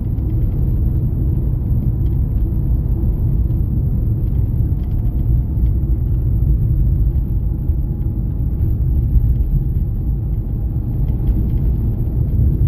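Steady low rumble of a vehicle driving along a road, heard from on board: road and engine noise with no marked changes.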